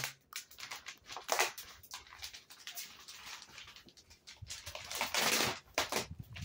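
Thin plastic wrapping around a rolled mattress crinkling and rustling in irregular bursts as hands pull and handle it, loudest a little past the middle.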